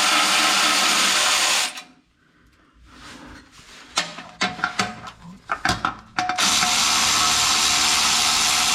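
Cordless electric ratchet running in two steady bursts, spinning out the 12 mm bolts of a transfer-case splash guard. Between the bursts, a few sharp metallic clicks and clinks.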